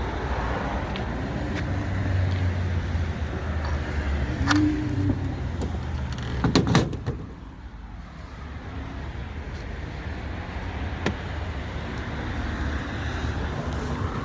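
Steady road and tyre rumble heard inside a car's cabin, with a few sharp clicks and a louder knock about six and a half seconds in, after which the rumble drops lower.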